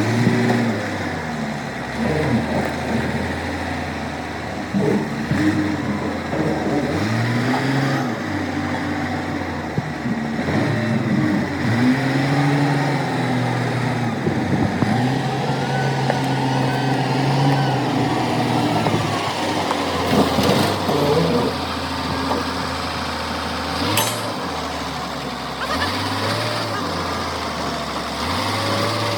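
Engine of a heavy machine running, its speed rising and falling again and again, with a sharp knock about two-thirds of the way through.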